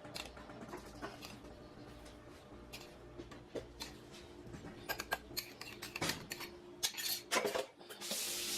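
Kitchen clatter of dishes and utensils being handled: scattered clicks and knocks, getting busier in the second half, then a steady hiss starting near the end.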